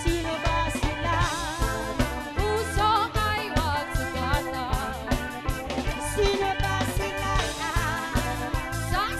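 Old-school Tagalog pop song playing as background music: a melody over a steady drum beat with guitar.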